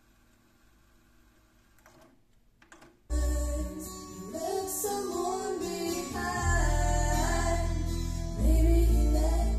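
Akai GX-7 cassette deck: its transport runs faintly while winding, gives a few mechanical clicks, then goes into playback about three seconds in. From then on the tape plays loud music, singing over a heavy bass.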